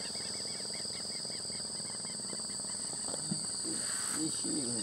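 Insects keeping up a steady, high-pitched shrill, with a bird's quick repeated chirps over it at the start.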